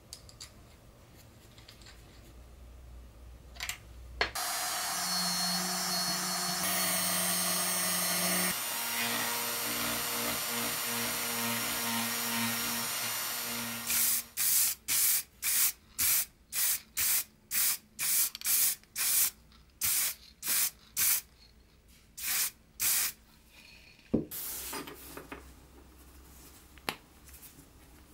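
Rotary tool spinning a felt polishing wheel against a small clear plastic part, a steady motor whine with its pitch shifting a couple of times, for about ten seconds. It is followed by more than a dozen short noisy bursts at about two a second, then a sharp click.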